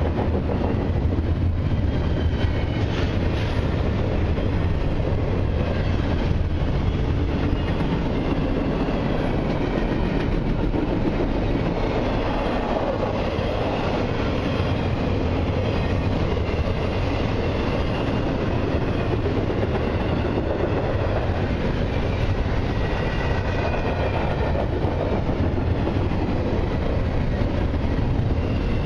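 Double-stack intermodal well cars of a CN freight train rolling past close by: a steady heavy rumble with the clickety-clack of wheels over the rails, and a faint high squeal that comes and goes.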